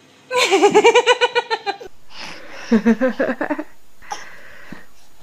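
High-pitched giggling laughter in a quick run of rhythmic 'ha-ha' pulses, followed about two seconds later by a second, lower-pitched burst of laughter.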